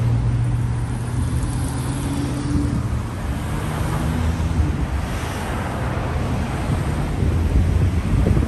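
Road traffic passing close by: cars and a bus in dense, slow-moving traffic. A steady low engine hum fades out after about three seconds, leaving the ongoing rumble of tyres and engines.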